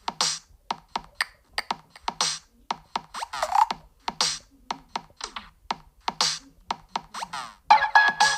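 A Google Pixel 9 ringtone playing from the phone's speaker: a quick run of short, clicky percussive notes, a few of them with rapid falling pitch sweeps. Near the end a different ringtone starts, made of held electronic tones.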